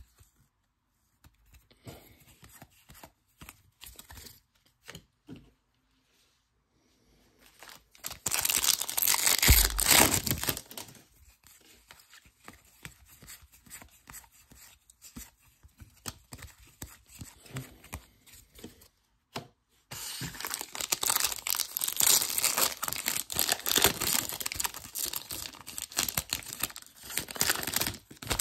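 Trading card packaging being torn open and crinkled: a few seconds of loud tearing about eight seconds in, then a longer stretch of tearing and crinkling of wrappers from about twenty seconds on. Between these, soft clicks and taps of cards being handled.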